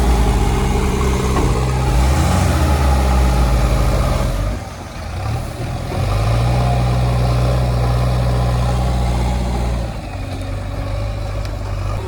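Heavy diesel engine running at high revs. It drops back about four seconds in, revs up again a little later, holds steady, and eases off near the end.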